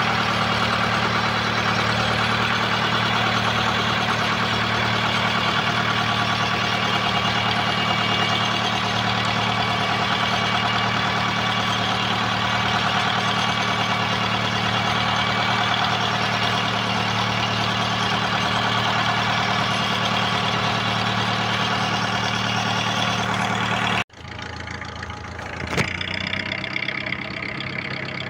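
Fishing boat's engine running steadily with a constant low hum. About 24 s in, the sound cuts abruptly and the engine goes on at a lower level.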